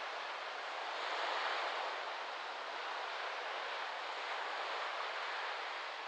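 Small waves breaking and washing up a sandy beach, with wind rustling through palm fronds: a steady hiss that swells a little about a second in.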